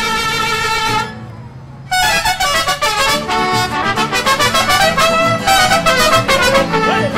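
Music: a held note stops about a second in, then after a short gap brass music starts, with trumpets playing quick notes.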